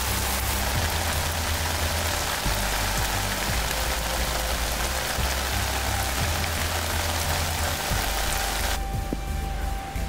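Steady rain falling on the ground, an even hiss, over background music with deep bass notes. The rain sound cuts off suddenly near the end.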